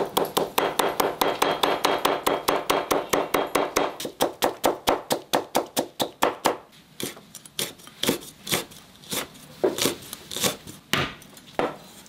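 Chinese cleaver chopping squash into thin shreds on a thick wooden chopping block. It is a fast, even run of knocks, about six a second, which gives way about six seconds in to slower, irregular knocks.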